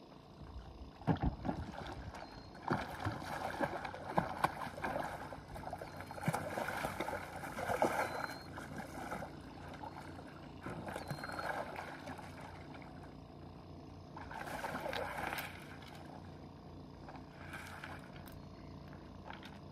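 Hooked fish splashing and thrashing at the surface close to the bank while being reeled in. The splashing comes in irregular bursts, heaviest over the first half, with further bursts at about 11 s and 15 s.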